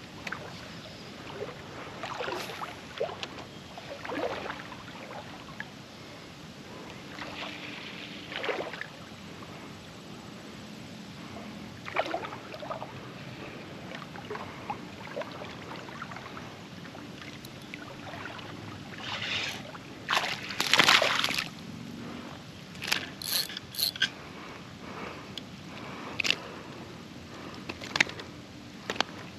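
River water sloshing and splashing in irregular bursts, with the biggest splashing about twenty seconds in.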